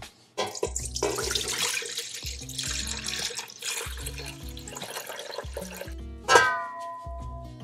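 Starchy pasta cooking water poured from a stainless steel saucepan into a stainless steel bowl, splashing steadily for about six seconds. Near the end a sharp metal clank rings out briefly. Background music plays underneath.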